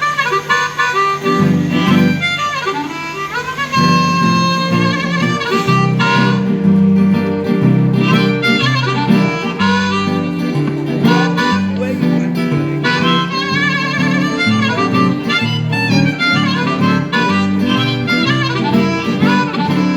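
Blues harmonica solo with bending notes over a strummed acoustic guitar accompaniment.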